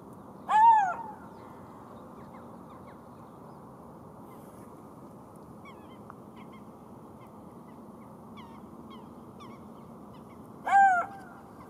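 Golden jackal giving two short yelping calls about ten seconds apart, each rising and then falling in pitch, over a steady low background hiss. Faint short high chirps come in between.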